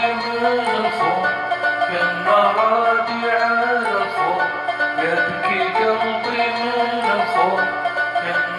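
Middle Eastern music from an Arabic song, with a melody line that bends up and down in pitch over the accompaniment.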